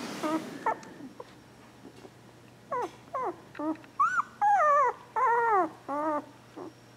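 Two-week-old Border Collie puppy whimpering: a few short whines in the first second, then a quick run of about eight high whines that rise and fall in pitch, from about three seconds in to about six.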